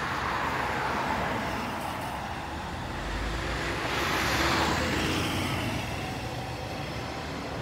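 MAN TGS 26.320 refuse truck's straight-six diesel engine pulling away and drawing off down the road, mixed with road traffic noise. The sound swells to its loudest about four to five seconds in, then eases.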